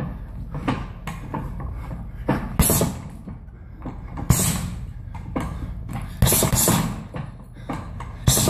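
Gloved punches landing on a round heavy bag in quick irregular combinations, with several harder shots standing out.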